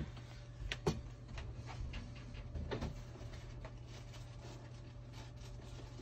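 A few light clicks and taps, two sharper ones close together about a second in and fainter ones after, over a steady low hum.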